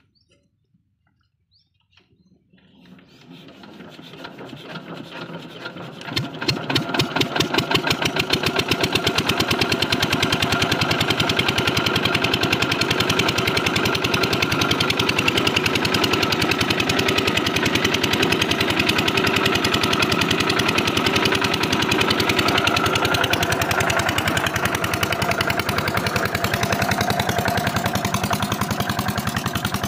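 Small diesel water-pump engine being hand-cranked into life: quiet at first, its beat builds over a few seconds as it catches, then it settles into a steady, fast, regular running beat.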